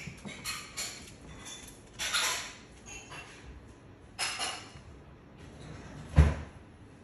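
Cats scrambling on a carpet-covered cat tree: several short bursts of scratching and rustling from claws on carpet, then one heavy thump about six seconds in as a cat jumps or lands in the lower bed.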